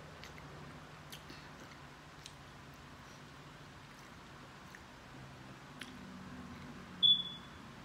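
Soft chewing and wet mouth clicks from eating corn on the cob. A single brief high beep about seven seconds in is the loudest sound.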